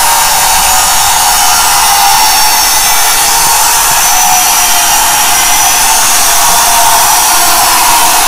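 Angle grinder cutting through a steel bar: a loud, steady, high-pitched whine and grinding rasp.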